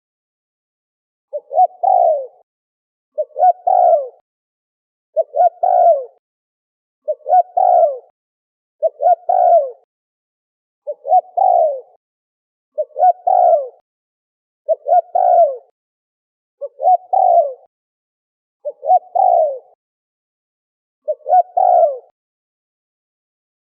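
Spotted dove cooing over and over, one call about every two seconds: each call is two or three short coos followed by a longer falling coo.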